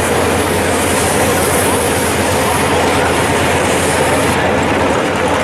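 Loud, steady rumble of drag-car engines running at the starting line, with a high hiss over it that drops away about four seconds in.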